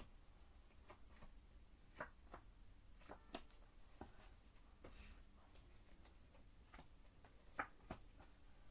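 Faint, scattered taps and flicks of tarot cards being drawn and laid down on a table, about ten soft clicks over several seconds with a slightly sharper one near the end, over quiet room tone.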